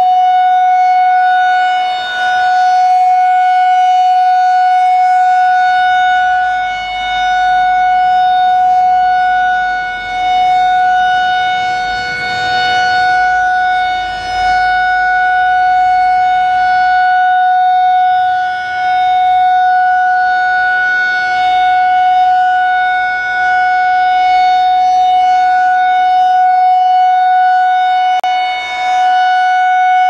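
Federal Signal 2001-SRN electromechanical siren sounding a steady single-pitch alert tone at full volume, loud and unchanging in pitch. The sound swells and fades every four to five seconds as the rotating horn sweeps past and away.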